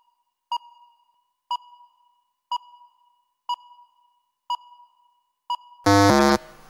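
Quiz countdown timer beeping, one short ringing ping a second, six times, then a loud low buzzer sounding for about half a second near the end as the timer reaches zero: time is up.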